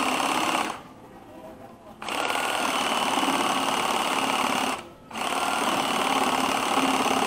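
A cordless drill driving a reciprocating-saw adapter, its blade sawing through dry, hard mahogany. It runs in three spells, with a stop of about a second near the start and a short one about five seconds in. The drill's battery is low.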